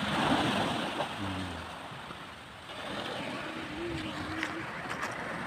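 Sea waves breaking and washing up a stony beach at high tide. The surf swells near the start, eases off about two seconds in, then builds again.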